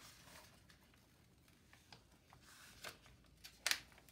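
Faint paper rustling and crackling as a diamond painting canvas and its protective paper cover sheet are handled and lifted, with a few short crackles near the end, the loudest one just before it closes.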